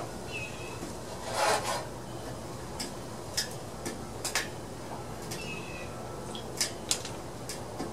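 Hands handling tools and parts: scattered light clicks and taps, with a brief rubbing scrape about one and a half seconds in.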